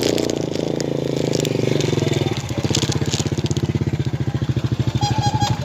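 A small engine running close by with a fast, even putter; its sound shifts slightly about two and a half seconds in.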